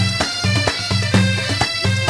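Background music: a wind instrument over steady held low notes, with a regular beat several times a second.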